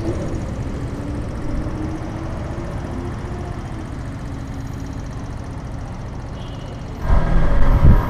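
Motorcycle engine running and road noise while riding, picked up by a helmet-mounted action camera's microphone. About seven seconds in the rumble turns suddenly much louder.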